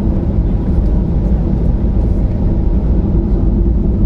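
Boeing 737-800's CFM56 jet engines at takeoff thrust during the takeoff roll, heard inside the cabin as a loud, steady low rumble.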